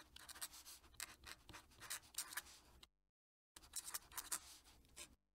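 Faint scratch of a fountain pen nib on paper, writing in quick cursive strokes; it breaks off for about half a second around three seconds in, then resumes.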